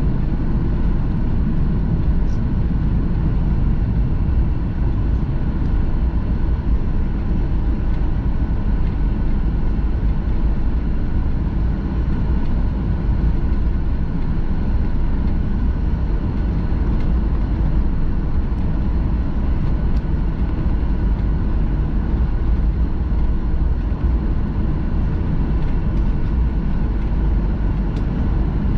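Steady rumble of a jet airliner's engines and rushing air, heard from inside the passenger cabin, with a few faint steady tones above it.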